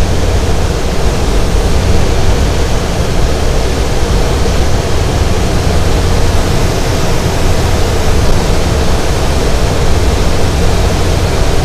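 Steady loud rush of airflow in a glider's cockpit on aerotow, even throughout, with a faint steady hum underneath.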